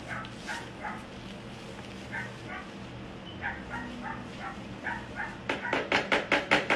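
A dog barking in short, high-pitched yips, about two a second. About five and a half seconds in, a much louder, fast run of sharp sounds starts, about five a second.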